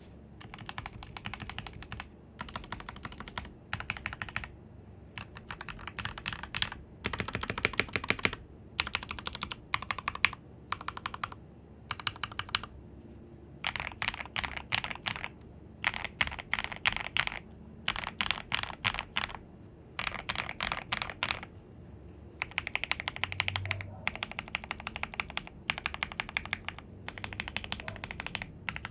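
Typing on a Royal Kludge RK84 mechanical keyboard fitted with lubed Gateron Milky Yellow linear switches, foam-dampened case and PBT keycaps: rapid key clacks in runs of a second or two with short pauses between.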